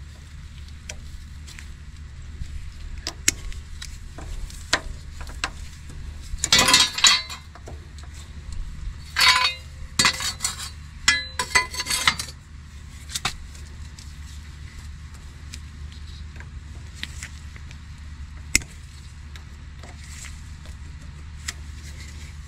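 Metal hand tools clinking and scraping on steel suspension parts as needle-nose pliers work a bent cotter pin out of a tie rod end's castle nut. A few denser rattling, scraping spells come about six, nine and eleven seconds in, over a steady low hum.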